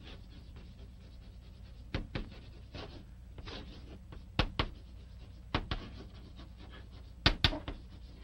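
Steady low hum and hiss of an old film soundtrack, broken by four pairs of sharp clicks spread through the pause.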